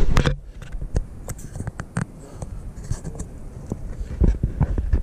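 Clothing and gear rubbing and scraping against a chest-mounted camera, with scattered sharp clicks and low thumps that are loudest at the start and again near the end.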